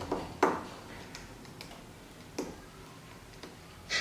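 A few scattered light ticks and taps, as of a small hard object knocking on plastic.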